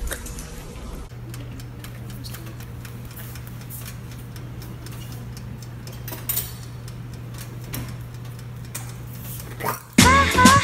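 A steady low hum with faint scattered clicks and knocks. Loud music cuts in near the end.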